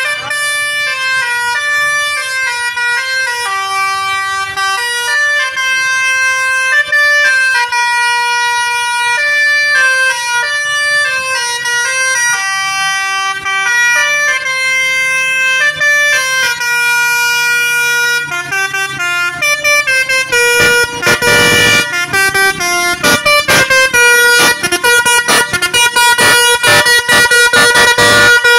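Basuri V3 telolet multi-tone air horn playing a tune of stepped horn notes. About two-thirds of the way through, the notes turn into a fast, rapid-fire stutter of short blasts.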